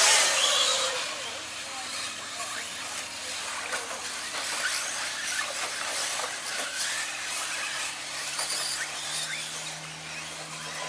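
A pack of radio-controlled short course trucks racing on dirt: many electric motors whining up and down over a steady hiss of tyres and loose dirt, loudest at the start and easing after about a second.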